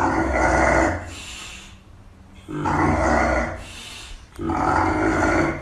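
An animal's growling call, three times, each about a second long with short pauses between.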